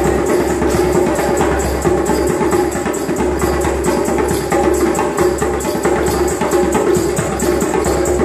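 Djembe-style hand drum played by a busker in a fast, steady rhythm of many strikes a second, with steady pitched music running underneath.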